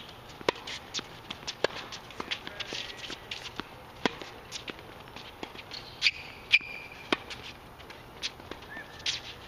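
Tennis rally on an outdoor hard court: sharp pops of racket strikes and ball bounces, irregularly spaced, with footsteps on the court between shots. The loudest two pops come about six and six and a half seconds in.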